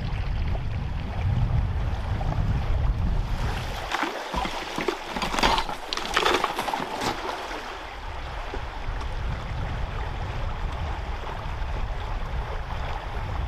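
River water flowing and sloshing around a drifting boat, with wind rumbling on the microphone. A few seconds of louder splashing come about four seconds in.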